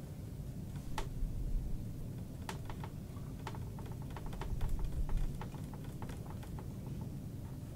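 A quick, irregular run of light clicks and taps, several a second, after a single click about a second in.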